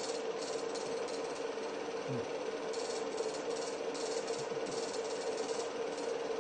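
Home-movie film projector running: a steady mechanical whir with a constant hum and a light rattling clatter from the film mechanism.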